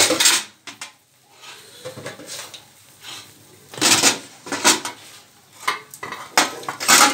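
Steel kitchenware being handled: scattered knocks and short scrapes, thickest about four seconds in and again near the end.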